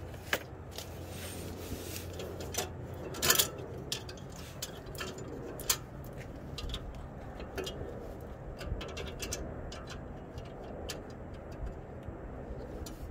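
Scattered light metallic clicks and taps as a hand tool and the steel clamp hardware of a catalytic converter anti-theft clamp are handled, with a denser rattle about three seconds in, over a low steady background rumble.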